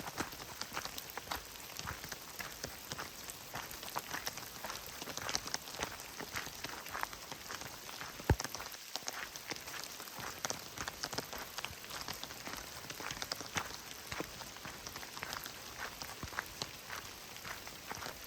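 Steady rain, with many irregular sharp drop hits close by and one louder knock about eight seconds in.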